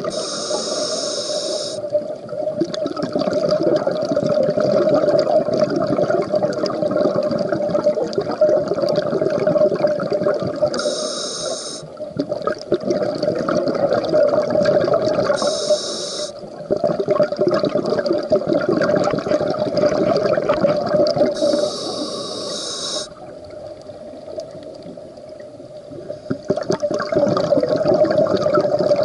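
Scuba breathing through a regulator underwater: long bubbling exhalations, with a short high hiss of an inhalation at the start and again about 11, 16 and 22 seconds in. A few seconds of quieter bubbling near the end.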